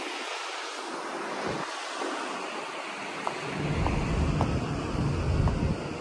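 Strong sea wind blowing across the microphone: a steady noise, with heavier low buffeting gusts in the second half.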